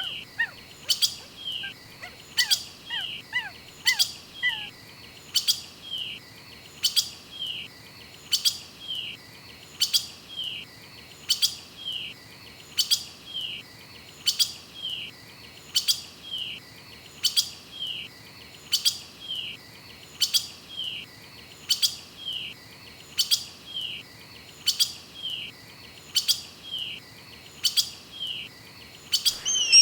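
A bird calling over and over at a steady pace, each call a sharp click-like note with a quick falling chirp, while a second, fainter bird gives short falling whistles during the first few seconds.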